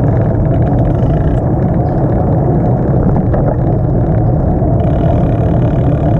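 Loud, steady low rumble of wind buffeting the microphone while riding a bicycle, with no pitched engine note; it cuts off suddenly just after the end.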